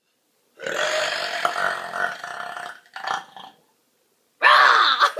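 A girl burping: one long, drawn-out burp lasting about two seconds, then a short second burp. A loud outburst follows near the end, running on into talk and laughter.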